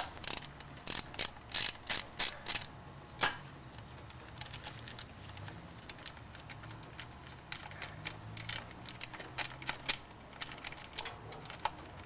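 Ratchet wrench clicking as it backs out the Allen-head bolts holding a blow-off valve. There are sharp, spaced clicks for about the first three seconds, then lighter, quicker clicking.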